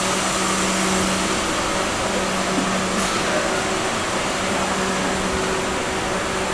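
Brew-house machinery buzzing away: a steady mechanical hum with an even hiss over it.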